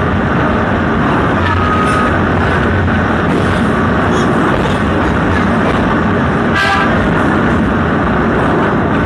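Steady running noise of a small diesel locomotive hauling a sightseeing train, engine drone and wheels on rails, echoing in a tunnel as it leaves. A short horn toot about two-thirds of the way through.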